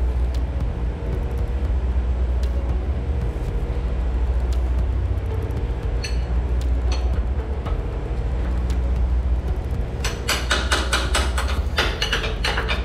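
Steady low machinery hum, then from about ten seconds in a quick run of sharp metallic clinks and taps as a metal tool works against the semi truck's rear shock mounting.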